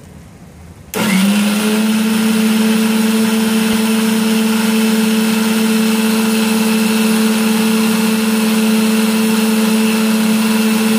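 Electric kitchen mixer-grinder switched on about a second in, its motor quickly spinning up and then running at a steady hum. It is grinding grated coconut, roasted gram and green chilli with a little water into chutney paste in its steel jar.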